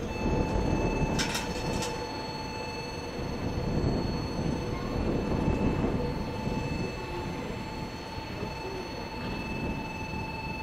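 Train running through the station: a steady rumble of wheels on rail with a steady whine held over it, and two brief sharp high noises about a second in.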